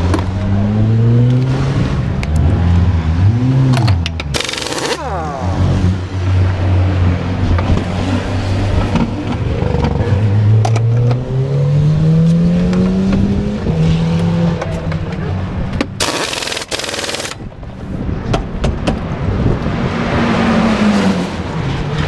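Pneumatic wheel gun rattling on the centre-lock wheel nut of a McLaren 570S GT4 during a pit-stop tire change, over low engine-like tones that slide up and down in pitch. Two loud rushing hisses of about a second each come about four and sixteen seconds in.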